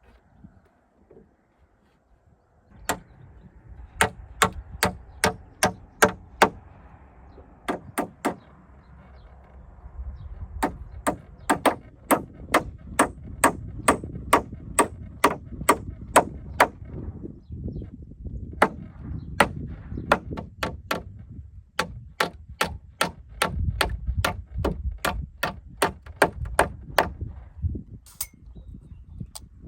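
Hammering: quick runs of sharp blows, about two or three a second, with short pauses between runs.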